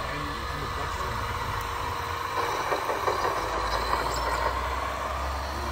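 Radio-controlled construction trucks running: a steady machine sound whose low hum strengthens about two and a half seconds in, with scattered clicks and knocks for the next two seconds.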